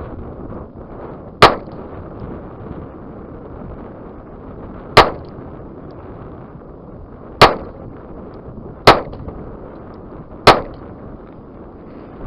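Five shots from a Charter Arms Undercover .38 Special revolver, fired double action at an uneven pace: a long pause after the first, then the shots come closer together. Wind noise on the microphone underneath.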